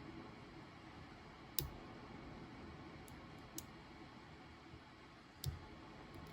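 Faint, scattered clicks of a lock pick and tension wrench working the wafers of a vintage Yale wafer padlock. The sharpest click comes about a second and a half in, with a few more spread through the rest.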